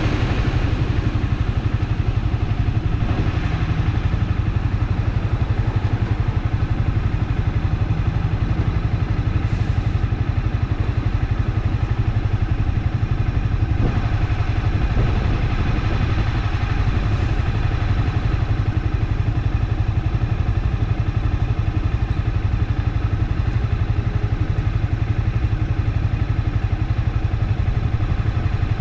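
Honda CBR300R's single-cylinder engine running steadily on the move, with no change in pace.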